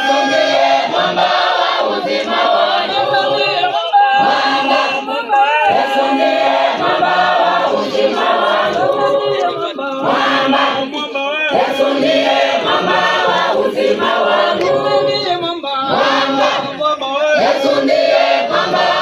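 A mixed church choir of men and women singing together, many voices at once.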